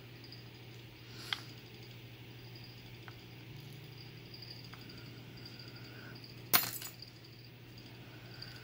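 Small brass lock pins and springs being handled with metal tweezers and set into a wooden pin tray: a few faint light clicks, then one sharper click with a short rattle about six and a half seconds in, over a faint steady hum.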